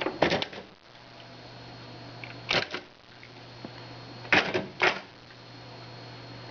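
Smith Corona Ultrasonic 350 Messenger electronic typewriter striking out characters in three quick bursts of sharp clacks: one at the start, one about two and a half seconds in, and a longer one near four and a half seconds. A steady low hum runs underneath.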